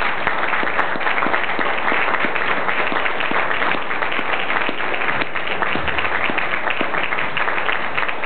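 An audience applauding: many people clapping steadily and densely.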